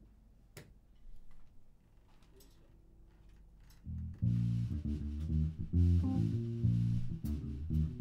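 Electric bass guitar plays a line of low, changing notes, starting about halfway through. Before it comes in there are only a few soft clicks and taps.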